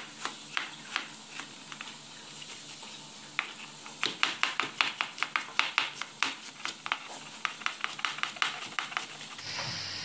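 Chef's knife cutting a red onion on a wooden cutting board: a few spaced cuts, then rapid chopping from about four seconds in. Near the end a running kitchen tap takes over with a steady hiss.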